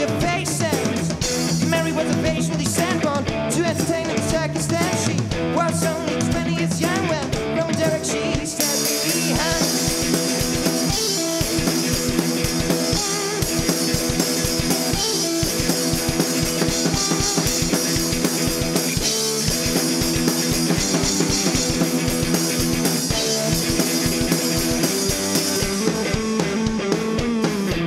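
Live garage rock from an electric guitar and a drum kit. About eight seconds in, the drums pick up into a driving beat with steady cymbals and rapid low drum hits. The cymbals drop away near the end.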